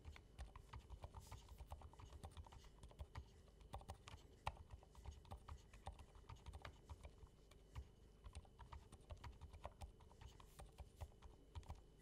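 Typing on a Drop Alt mechanical keyboard: a steady run of key clacks, several a second, with no pauses.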